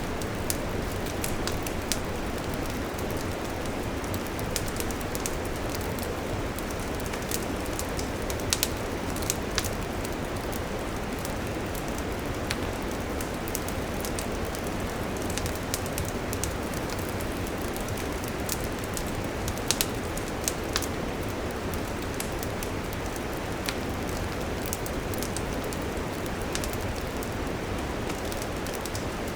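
Wood fire burning, with a steady rushing hiss and scattered sharp crackles and pops throughout. Small clusters of louder pops come about a third of the way in and again about two-thirds in.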